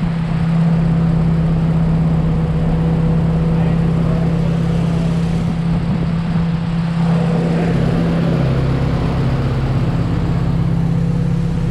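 Freshly rebuilt Honda B16B inline-four engine running at a steady speed in the Civic on a dyno, a loud even hum with a slight shift in pitch a little past halfway.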